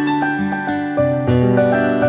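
A Meizu Flyme stock phone tone playing: a melody of plucked, guitar-like notes.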